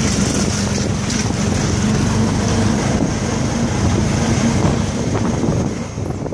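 Engine of a moving vehicle running with a steady hum, with wind rushing on the microphone.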